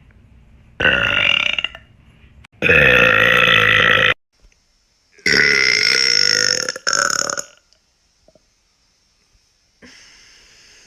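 A woman letting out three long, deep burps of a second or more each, with short pauses between them; the third runs straight into a short fourth one.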